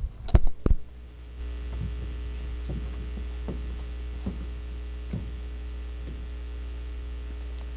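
A few sharp knocks on the podium microphone as the speaker leaves it, then a steady low hum with faint soft thuds repeating a little under once a second.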